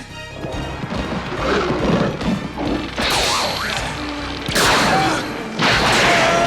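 Action-film soundtrack: music with three loud crashes, about three seconds in, four and a half seconds in, and just before the end.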